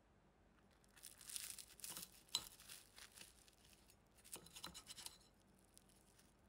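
Knife and fork cutting through flaky baked puff pastry: the crisp layers crackle and crunch in two bouts, with one sharp clink of cutlery on the ceramic plate about two seconds in.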